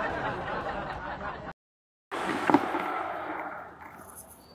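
Steady background noise broken by about half a second of dead silence, then quieter background noise with one sharp knock just after the gap, fading toward the end.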